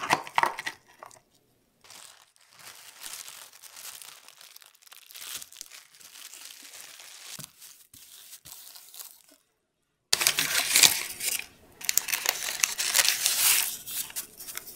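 Plastic cling wrap crinkling as it is stretched and pressed over the bottom of a stainless steel mousse ring, louder over the last few seconds. A short burst at the very start is Oreo cookies being set in a dish.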